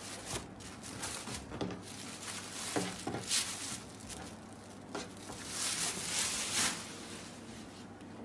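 Rustling and swishing of a soft linen saree and its blouse piece being handled and unfolded, in irregular surges that are loudest about three and six seconds in.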